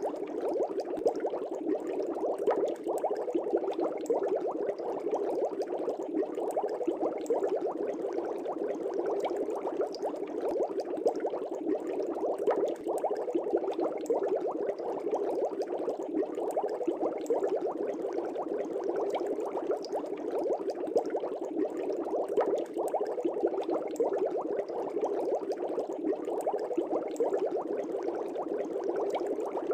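Air bubbles rising and bubbling steadily in a fish tank, a continuous dense burble of many small bubbles with tiny pops and ticks throughout.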